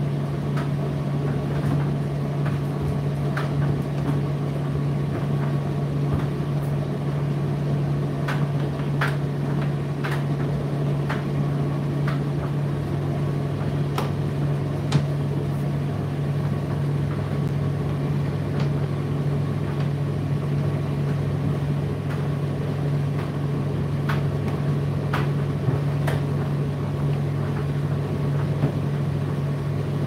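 Indesit IDC8T3 condenser tumble dryer running: a steady low motor hum over the even noise of the turning drum and fan, with scattered light clicks every second or two.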